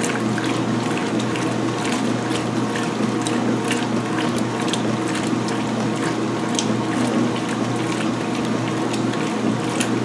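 2016 Speed Queen top-load washing machine agitating a load of towels: the motor and transmission run with a steady mechanical hum while the water churns and sloshes, with frequent small clicks and splashes.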